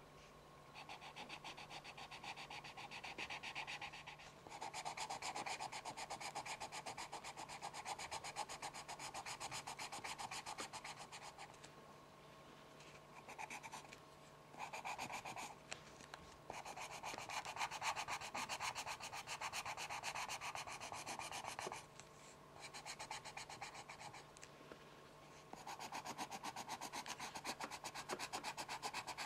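Pencil scratching in rapid back-and-forth strokes, in runs of several seconds broken by short pauses.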